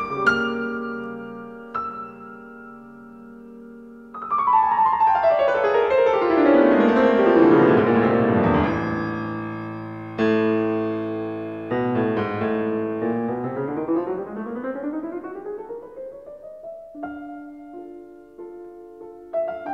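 Solo piano music: a held chord dies away, then a fast run of notes sweeps downward about four seconds in, followed by chords and a rising arpeggio, ending in quieter repeated notes.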